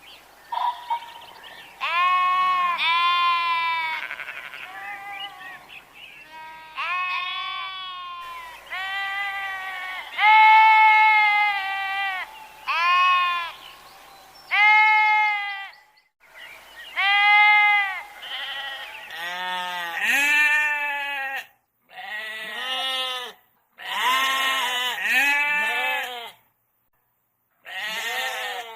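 Sheep bleating over and over, one drawn-out call after another. The calls are higher-pitched in the first half and deeper and closer together later on, with a few abrupt cuts to silence between them.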